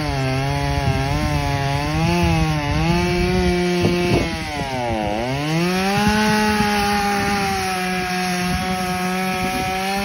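Power saw running while cutting branches. Its pitch wavers as the blade loads up, drops sharply about five seconds in, then climbs back and holds steady.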